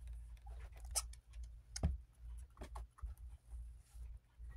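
Soft scratching and scattered light clicks of a fleece cage liner being tucked and smoothed along the edges of a wire guinea pig cage, with a dull knock about two seconds in, over a steady low hum.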